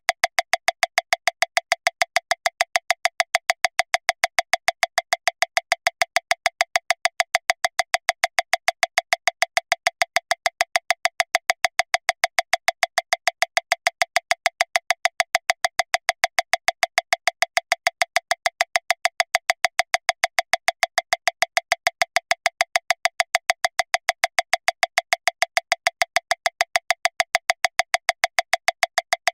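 Metronome clicking steadily at 405 beats per minute, about seven short, even clicks a second.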